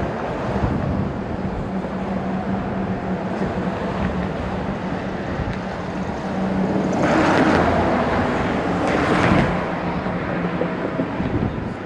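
Road traffic running steadily with a low drone. A louder rush of passing vehicles comes from about seven to nine and a half seconds in, peaking twice.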